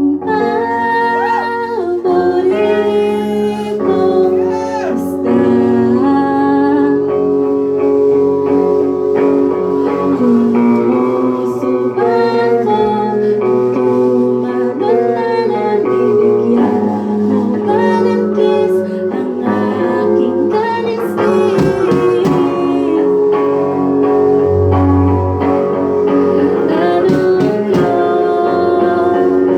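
A live band playing a song, with a singer over guitar. The words are sung in Tagalog.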